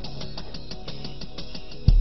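Background music: guitar notes plucked in a steady rhythm. A louder, bass-heavy section comes in suddenly near the end.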